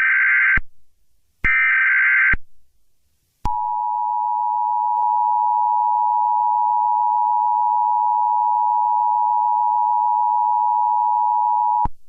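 Emergency Alert System tones: two short screeching data bursts of the SAME header, each just under a second long, then about a second of silence. The steady two-tone EAS attention signal follows, held for about eight seconds and cutting off abruptly just before the end.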